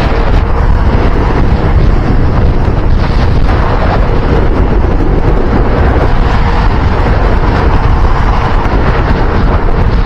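Loud, steady wind buffeting on the microphone from travelling at speed, with vehicle and road noise underneath.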